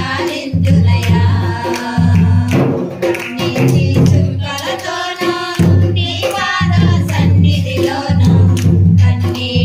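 Two women singing a Christian devotional song into a handheld microphone, with a rhythmic percussion accompaniment keeping a steady beat under the melody.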